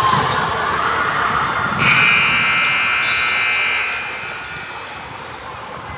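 Basketball scoreboard buzzer sounding once for about two seconds: a steady, high, electronic tone that starts and cuts off suddenly, over the noise of a gym.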